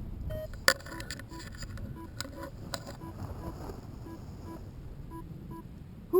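Short electronic beeps repeating in a steady rhythm at a few alternating pitches, over a faint hiss. Two sharp clicks are heard, one under a second in and one near three seconds.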